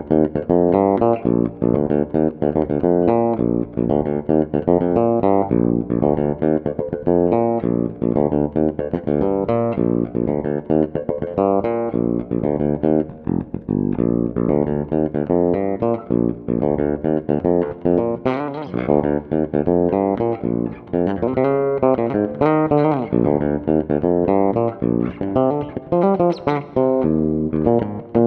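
Passive electric bass played through a bass preamp pedal, a busy line of quickly plucked notes with some sliding notes past the middle. The neck pickup is turned down a little for a focused midrange, with the pedal set for more bass and less treble.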